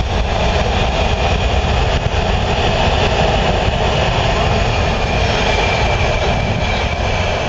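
A Washington Metro subway train running through the station at speed without stopping: a loud, steady rumble of the cars passing on the rails. A thin, steady high whine joins in over the second half as the last car goes by.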